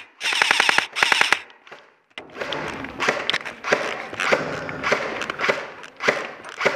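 Airsoft electric rifle firing two short full-auto bursts within the first second and a half, each a rapid even rattle of shots. From about two seconds in, a stretch of irregular rustling and knocking noise.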